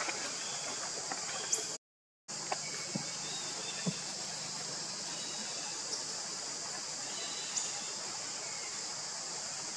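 Steady high-pitched insect drone, with a few faint clicks; it drops out completely for about half a second near two seconds in.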